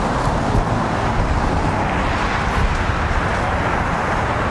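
Road traffic going by, a steady, even noise with no single vehicle or event standing out.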